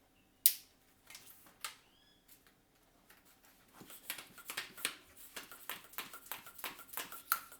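Small hand-held bike pump on a tube valve: a sharp click as it is fitted, another shortly after, then from about four seconds in a rapid run of short pump strokes, about three a second, starting to inflate the new tube.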